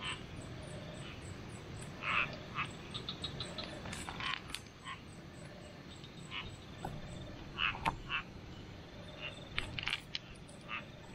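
Frogs croaking, a short call repeated several times, with the rustle and clatter of plastic basket fish traps being handled.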